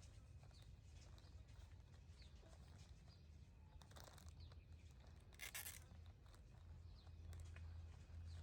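Near silence: a faint steady low hum with a few faint short chirps, and a brief rustle about five and a half seconds in.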